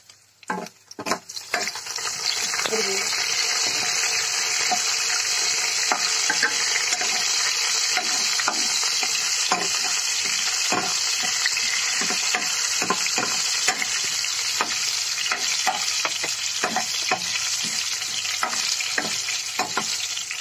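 Chopped garlic with cumin and mustard seeds frying in hot oil in a kadai, the sizzle building about two seconds in and then running steadily with frequent sharp crackles and pops. A spatula stirring in the pan.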